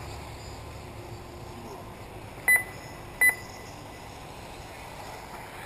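Two short, loud electronic beeps, about three-quarters of a second apart, over a steady background noise.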